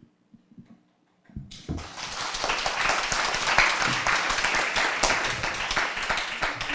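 A brief hush, then an audience applauding from about a second and a half in.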